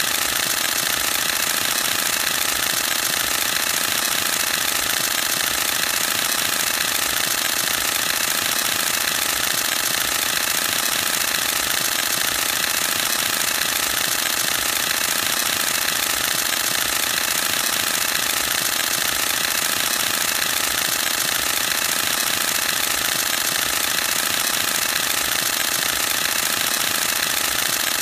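Canon EOS-1D X Mark II's mirror and shutter firing in continuous high-speed burst, a rapid, unbroken mechanical clatter that holds an even pace throughout.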